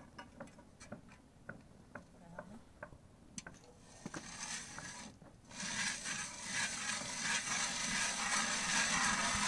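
Hand-cranked ice auger biting into lake ice: a few light clicks and knocks, then from about four seconds in a steady, loud grinding scrape as the blades cut.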